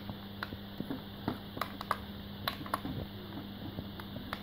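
Irregular light clicks and taps of fingers handling a small hand-held plastic RC transmitter, over a steady low hum and hiss.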